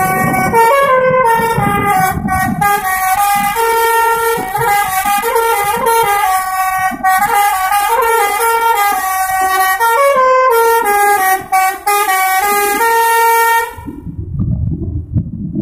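Bus 'telolet' horn, a multi-tone air horn playing a quick melody of stepped notes over the low rumble of the bus. The horn cuts off about two seconds before the end, leaving only the rumble.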